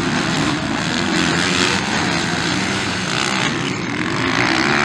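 Motocross dirt bike engines running hard on the track, their buzzy note rising and falling as the riders work the throttle.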